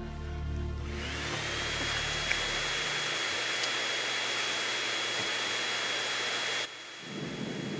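Canister wet/dry vacuum cleaner switching on about a second in. Its motor whine rises as it spins up, then runs steady with a high whine and a hiss, and cuts off suddenly near the end.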